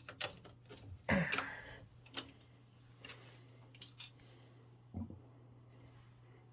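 Open furnace cabinet with the power on: a steady low electrical hum, with scattered light clicks and taps.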